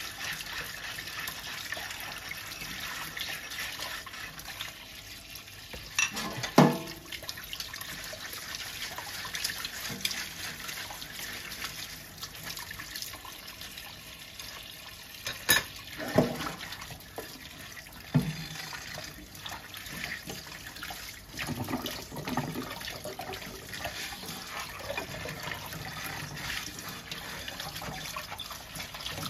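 Tap water running steadily into a stainless steel sink while dishes are washed by hand, with a few sharp clinks of plates and bowls knocking together, the loudest about six seconds in and about fifteen seconds in.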